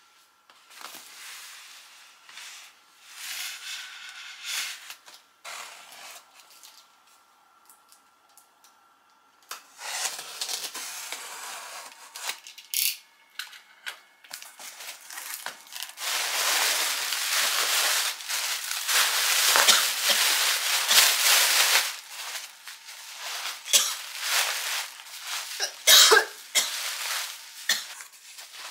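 Cardboard shipping box being handled and unsealed: scattered rubbing and scraping, then a long loud scraping, tearing stretch over the taped seam, then the flaps pulled open with a few sharp knocks near the end.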